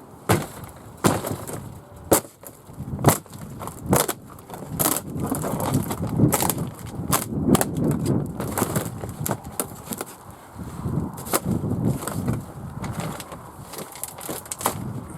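Old polytunnel woodwork being kicked and broken apart: a series of sharp wooden knocks and cracks, about one a second at first and more spaced out later, with rough scraping and rustling between them.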